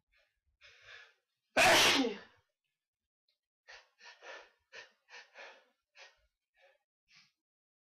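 A person sneezes once, loudly, just after a short intake of breath. A string of about nine short breaths follows.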